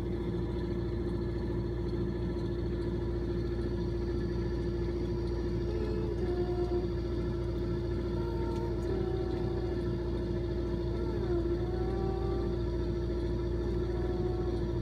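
Steady low machine hum with one constant tone, with a few faint, short high squeaks now and then.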